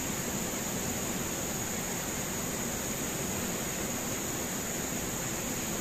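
Fast river water rushing over rapids: a steady, even wash of noise with no breaks, and a steady high-pitched whine over it.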